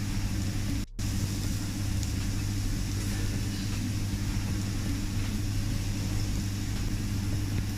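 Steady low mechanical hum with an even hiss over it, the sound of ventilation running over a teppanyaki grill; it cuts out briefly about a second in.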